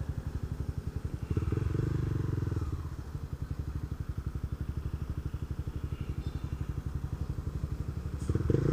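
Single-cylinder engine of a Honda CB Twister motorcycle running through an aftermarket Protork sport exhaust: a rapid, steady pulsing at low revs. The revs rise briefly about a second and a half in and again near the end.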